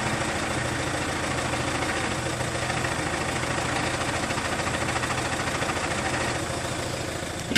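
Peugeot 407 2.0 HDi four-cylinder diesel idling steadily with a fast, even pulse, carrying the strange noise from a worn-out flywheel. A sharp knock comes right at the end.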